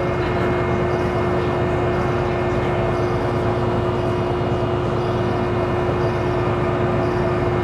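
Tour boat's engine running at a steady drone, with a constant hum and an even rushing noise of wind and water over it.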